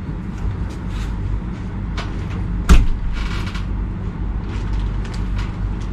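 Small knocks and clicks of things being handled in a small room, with one sharp knock just under three seconds in, over a steady low hum.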